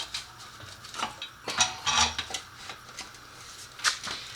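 Metal tools and motorcycle parts clinking and clanking as they are handled, in a run of sharp knocks, loudest in a cluster about two seconds in and once more near the end.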